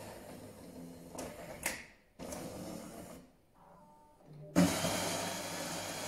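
Jura E8 automatic coffee machine working through the second shot of an espresso doppio: motor whirring in stages with short pauses and a faint hum, then a louder steady run that starts suddenly about four and a half seconds in.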